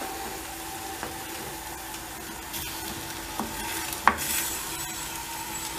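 Ground beef with diced tomato and green pepper sizzling in a stainless steel frying pan while a wooden spoon stirs and scrapes through it. There is one sharp knock about four seconds in.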